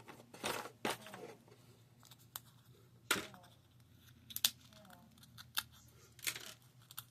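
Cardboard and plastic game pieces being handled and set down: scattered short clicks and rustles, the sharpest about four and a half seconds in.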